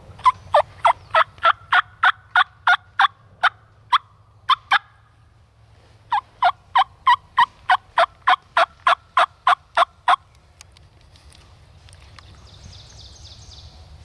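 Turkey yelping: two long runs of loud, evenly paced yelps, about three a second. The first run slows over its last few notes and stops about five seconds in; the second starts about a second later and stops about ten seconds in.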